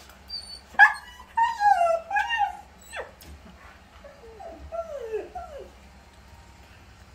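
A dog whining and whimpering, shut inside away from its owners: a run of high, wavering cries starting about a second in, the first the loudest, then a quieter series of falling whines a few seconds later.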